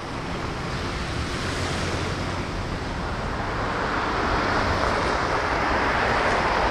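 Road noise of a vehicle's tyres on the street: a steady rushing hiss that slowly grows louder.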